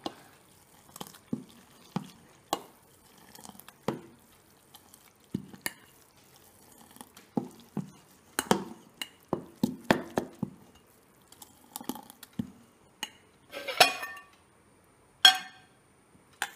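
Steel spoon stirring well-fermented, risen appam batter in a stainless steel pot, with irregular clinks and knocks of metal against the pot's side. Near the end comes a brief clatter, then one sharp clink, the loudest of all.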